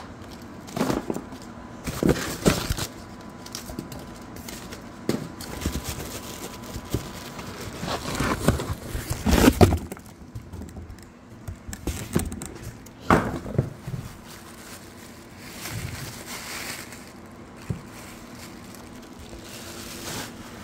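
Cardboard packaging and plastic wrap being handled as a subwoofer is unpacked: irregular rustling and crinkling with scattered sharp knocks, the loudest about two, nine and thirteen seconds in.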